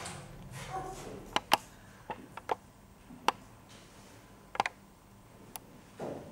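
A handful of sharp, irregular clicks and knocks, two in quick succession about a second and a half in and the rest scattered over the next few seconds, over faint hiss.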